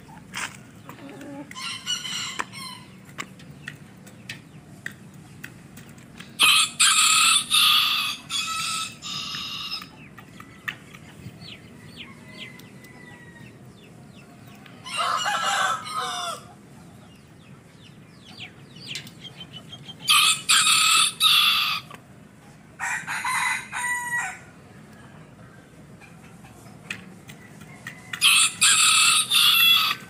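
Roosters crowing about seven times, each crow a loud call of one to three seconds, with faint clicks in the quieter gaps between.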